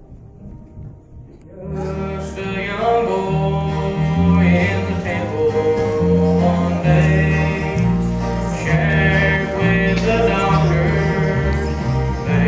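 A song with singing and a bass line starts about two seconds in, after a moment of quiet room sound.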